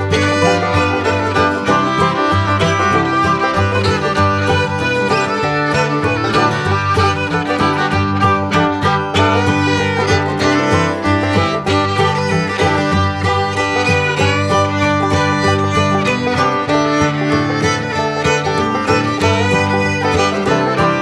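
Instrumental background music, continuous and steady in level.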